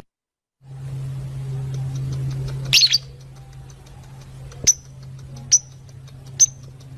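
Fischer's lovebirds calling. A short cluster of shrill chirps comes about three seconds in, then single sharp chirps about once a second, all over a steady low hum. The sound drops out completely for the first half second or so.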